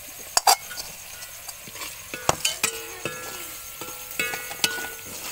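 Steel spatula clinking and scraping against a metal cooking pan as spice powders are stirred into frying onions: several sharp clinks spread through, the pan ringing briefly after some of them.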